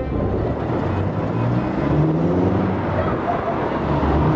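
Heavy truck diesel engines running, with one engine rising in pitch about one and a half seconds in as a tractor unit pulls away.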